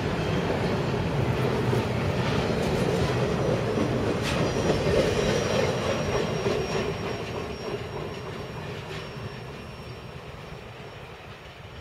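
Freight train's double-stack intermodal well cars rolling past on steel wheels. The last car goes by about halfway through, and the rolling sound then fades as the train pulls away.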